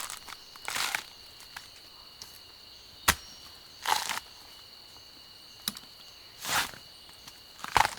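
Scattered short rustling noises and one sharp knock a little after three seconds, over a steady high-pitched whine from rainforest insects.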